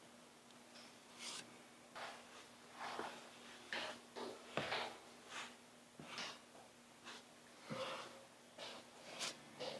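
Irregular short rasping strokes by hand on the Bondo body filler over the shaved emblem spot of a Nissan 350Z front bumper, roughly two a second.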